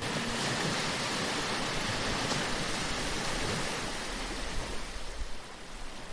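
Sea waves washing in as a steady rush of surf, easing off a little near the end.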